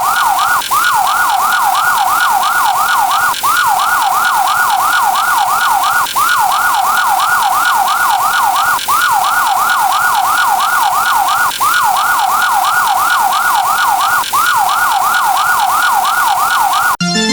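Police siren sound effect in a fast up-and-down yelp, looped with a short break about every three seconds, cut off abruptly just before the end.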